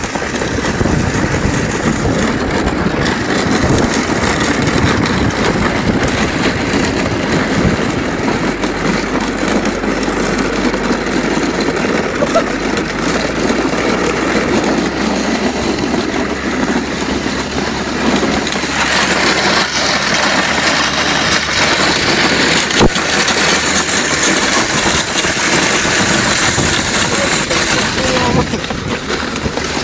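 Makeshift wooden-plank sled towed behind a car over bare asphalt: a loud, continuous scraping rumble of the boards and dragging shoe soles on the road, with the car's engine running underneath. The scraping turns hissier about two-thirds of the way through.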